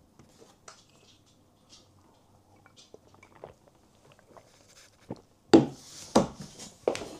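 A man drinking from a glass: faint gulps and small handling clicks, then the glass set down and three loud thumps on the wooden table over the last two seconds.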